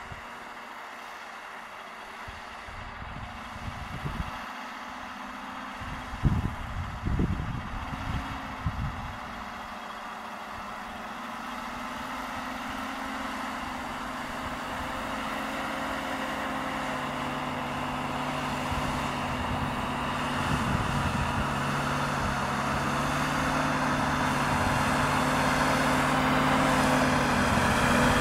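GAZ-66 truck's engine running steadily as it drives through deep snow, growing louder as the truck comes closer. A few low thumps come a few seconds in.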